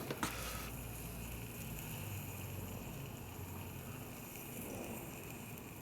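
Steady hiss of a gas torch flame heating a fuel strainer for soldering, with a couple of light clicks just after the start.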